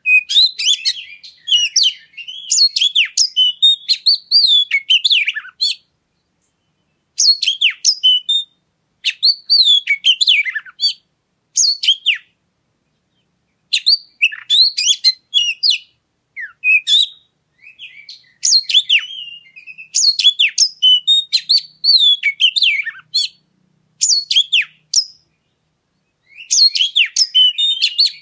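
Oriental magpie-robin (kacer) singing: rapid, varied whistles and chattering notes in phrases of one to five seconds, separated by short pauses.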